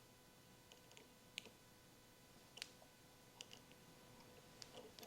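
A few faint, scattered metallic clicks of a small wrench and pliers working the 7 mm bolt that clamps the choke cable on a small generator engine.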